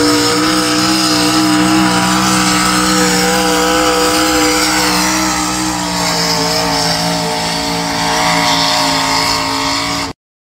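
Pulling tractor engine held at high revs under load during a pull, a loud steady drone that sags slightly in pitch about halfway through. It cuts off suddenly near the end.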